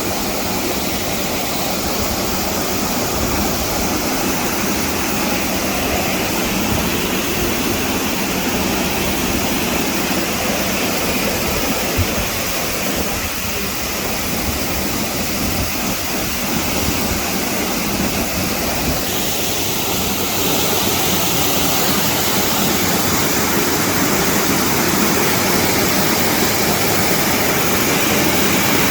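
Waterfall rushing steadily, a loud even wash of falling water, with wind buffeting the microphone.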